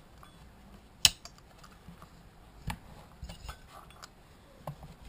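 Small metal clicks and clinks from a Stihl chainsaw's chain-brake parts as the hand guard and its lever are pressed sideways into place, with one sharp click about a second in and a few lighter taps after it.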